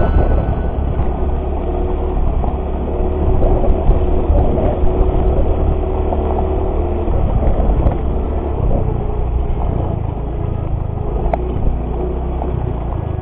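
Trail motorcycle engine running during an off-road ride, a steady dense noise heaviest in the low end.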